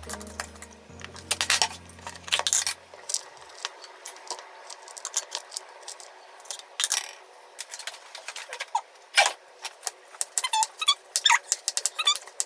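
Kitchen utensils clicking and scraping against bowls: chopsticks tossing cut asparagus in a small ceramic dish, then a spoon scooping and stirring seasoned ground meat into rice in a glass bowl. Short ringing clinks come near the end.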